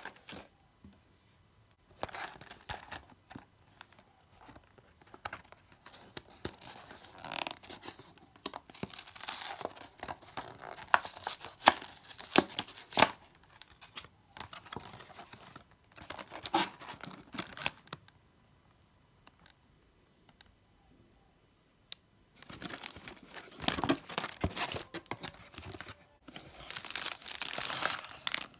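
Packaging of a Bauducco mini panettone being torn open and crinkled: irregular spells of tearing and rustling with sharp crackles, pausing twice.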